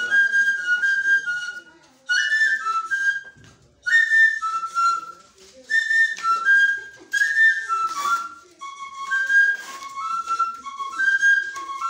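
A high, whistle-like melody in short phrases of quick notes, with brief pauses between the phrases.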